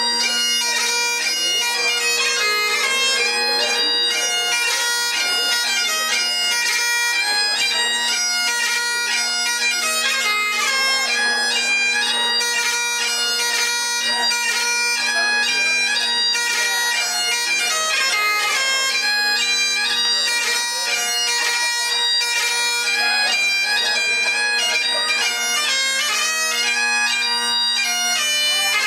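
Scottish Highland bagpipes playing the dance tune for a Highland Fling: a quick, unbroken melody over the steady drones.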